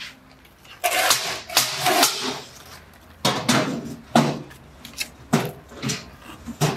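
Steel scraper dragged across wet foam concrete in a mould, levelling the top of the blocks: a run of scraping strokes with a few sharp knocks in between.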